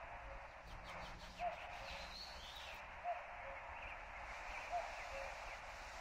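Forest birdsong. One bird repeats a low two-note call, a higher note then a lower one, about every second and a half, over fainter chirps and whistles from other birds.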